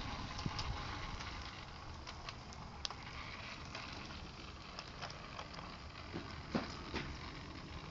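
LGB garden-scale model train running while it pushes snow: a steady low electric-motor hum with scattered clicks and knocks from the wheels and track, the sharpest a little after six seconds in.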